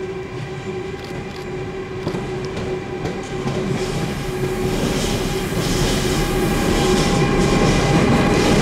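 SŽ class 541 (Siemens Taurus ES64U4) electric locomotive approaching with a freight train and growing steadily louder: a steady hum with a few higher held tones over the rumble of wheels on rails, with clicks as the wheels cross rail joints and points in the second half.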